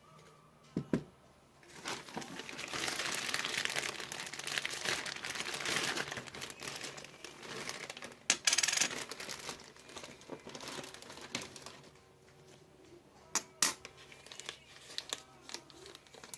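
Packaging being crinkled and torn open by hand: dense crinkling for several seconds, then scattered crackles and a few sharp clicks.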